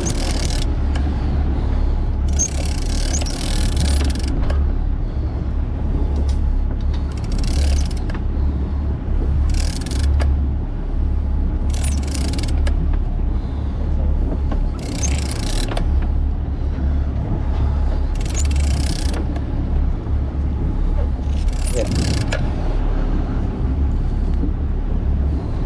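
Fishing boat's engine running with a steady low rumble, with short bursts of hiss rising and falling every two to four seconds.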